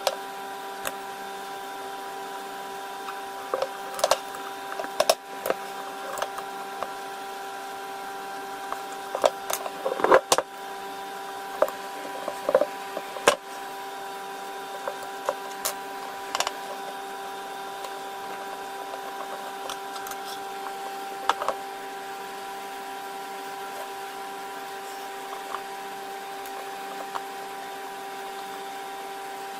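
A steady machine hum made of several fixed tones, with scattered sharp clicks and knocks, most of them in the first half.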